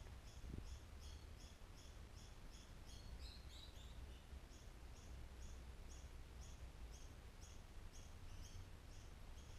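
Faint bird chirping, the same short high call repeated evenly about two or three times a second, over a low steady hum.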